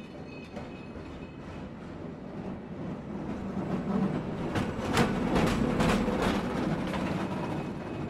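Gondola cabin and haul rope running over a lift tower's sheave wheels: a rolling rumble that builds, with a run of rattling clacks about halfway through as the cabin's grip passes over the wheels, then eases off.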